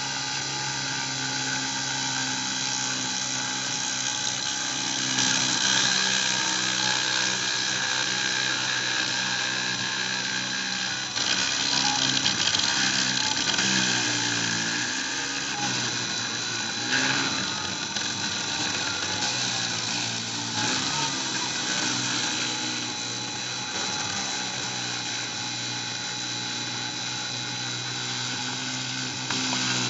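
Dremel rotary tool on a Cyclone PCB CNC, spinning with a steady high whine as it cuts into acrylic. Underneath, the machine's stepper motors drive the axes, and their tones rise and fall as the moves change speed, mostly in the middle of the stretch.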